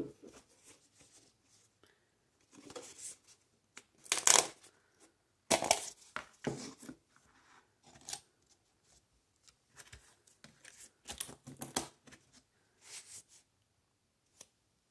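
A plastic food tub and its lid being handled as play dough is packed into it and the lid fitted: irregular scraping, crinkling and sharp plastic clicks, the loudest about four and five and a half seconds in.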